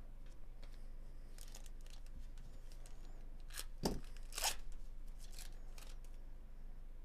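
Foil wrapper of a 2024 Bowman Chrome baseball card pack being torn open and crinkled by hand, in a series of short crackles, the loudest two a little before and just after the middle. The cards rustle as they slide against each other.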